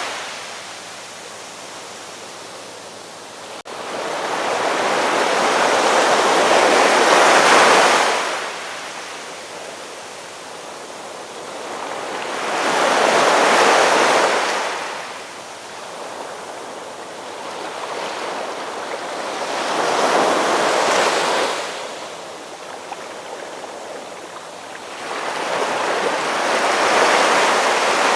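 Ocean surf: waves breaking and washing in, the rush rising and falling in slow swells about every seven seconds, four times over.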